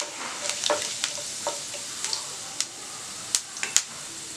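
Whole spices (fennel seeds, black peppercorns, cinnamon and cloves) sizzling in hot oil in a nonstick pan, stirred with a wooden spatula, with scattered sharp pops as the seeds crackle.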